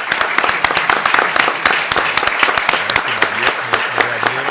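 Applause from a room of people, many hands clapping at once in a dense, steady patter.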